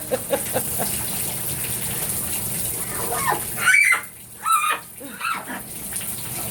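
Shower water running steadily, with a scarlet macaw giving a few short bark-like calls partway through. The calls fall in pitch.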